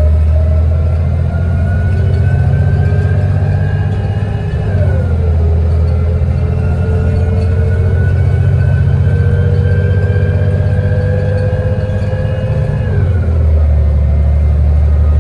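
City transit bus engine and automatic transmission accelerating, with a steady low drone. The pitch climbs slowly and drops sharply at two gear upshifts, about a third of the way in and again near the end.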